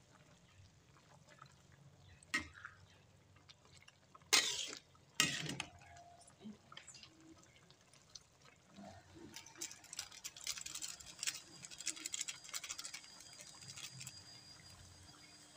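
Sayur lodeh, a coconut-milk vegetable stew, bubbling in a wok while a metal ladle stirs and splashes through the broth. The loudest strokes come about four and five seconds in, and from about nine seconds on there is a dense fine crackling of bubbles.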